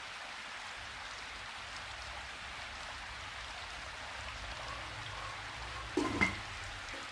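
Over a steady hiss, a stainless steel lid is set onto a stainless steel pot about six seconds in: two quick metallic clinks with a brief ring.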